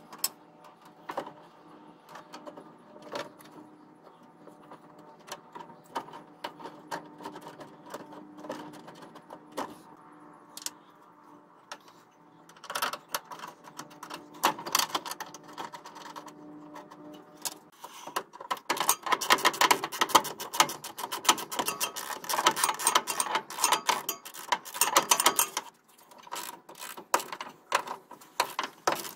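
Hand ratchet clicking in quick runs as the radiator and fan shroud bolts are tightened, with scattered clinks of tools and bolts before it; the ratcheting is densest and loudest from about two-thirds of the way through.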